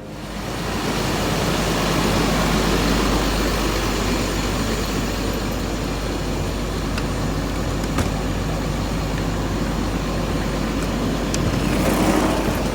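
A large truck's engine idling steadily: a low rumble under a constant haze of noise, with a sharp click about eight seconds in.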